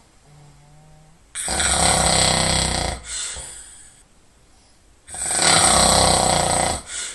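A person snoring heavily: two loud, harsh snores about three and a half seconds apart, each lasting about a second and a half and followed by a short, softer breath.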